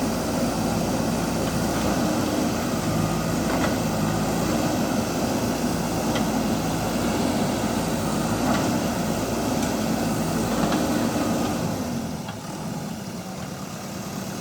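Diesel engine of a JCB backhoe loader running steadily at working speed, then easing off to a quieter, lower running note about twelve seconds in.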